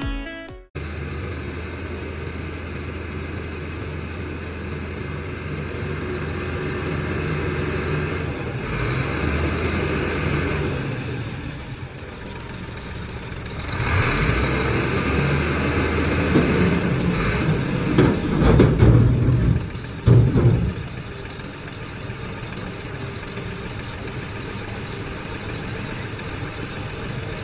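Diesel engine of a SHACMAN 6x4 dump truck running while its tipper body is raised. It runs steadily, grows louder and rougher for several seconds past the middle with a few sharp surges, then settles back to a steady run.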